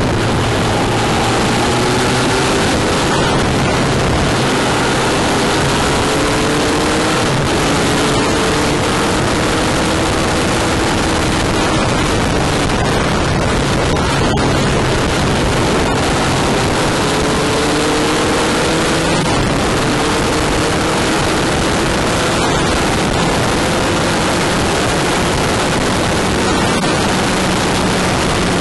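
A steady, loud rush of wind and road noise on a camera mounted by a motorcycle's front wheel at speed. The Honda CBF1000GT's inline-four engine is faintly heard under it, rising in pitch as the bike accelerates, twice.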